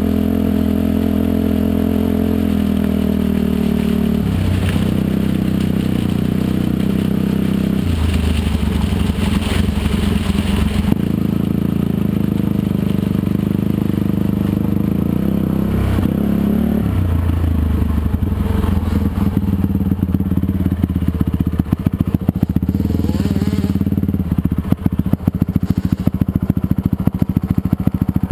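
85cc two-stroke dirt bike engine running under changing throttle, its pitch stepping up and down several times. The sound turns uneven and choppy over the last third.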